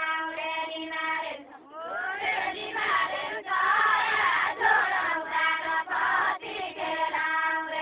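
A group of women singing a deuda folk song together, unaccompanied. Long held notes at the start and again near the end, with several voices overlapping and gliding in the middle.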